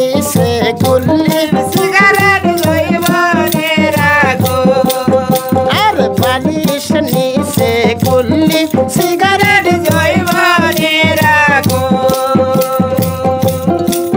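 Instrumental passage of a Bengali folk wedding song: a melody line over rattle percussion keeping a steady beat.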